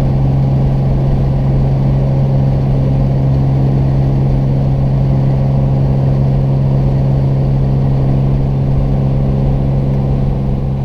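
Piston engine and propeller of a single-engine high-wing light aircraft heard from inside the cabin in flight: a loud, steady drone that holds an even pitch.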